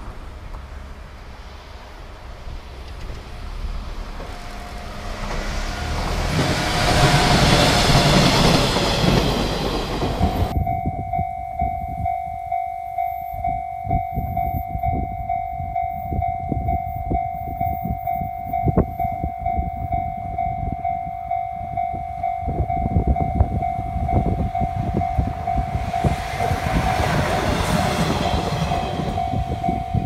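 A 719-series electric train passing, its rushing and rumbling rising to a peak about eight seconds in. After a sudden change about ten seconds in, a level crossing alarm sounds as a steady high tone over low clatter, and a train's noise rises again near the end.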